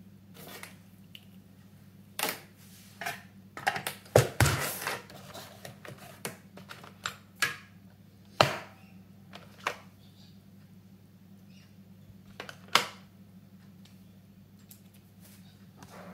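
Irregular clicks, taps and knocks of small objects being handled on a hard surface, about a dozen spread out and densest around four seconds in, over a steady low hum.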